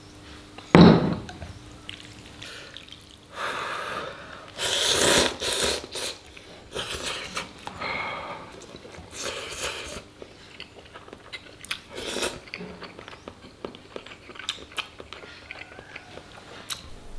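A single knock about a second in, as a small porcelain pot is set down on a wooden table. Then a person slurps noodles loudly several times, with chewing between the slurps.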